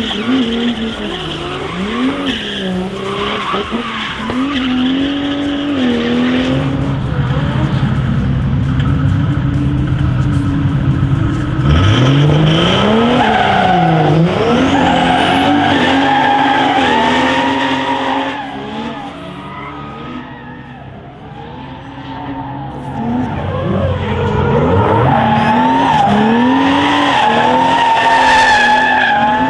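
Turbocharged OM606 diesel straight-six of a Mercedes W124 drift car, revving up and down repeatedly through drifts, with the tyres skidding and squealing. The engine fades for a few seconds about two-thirds through, then comes back loud.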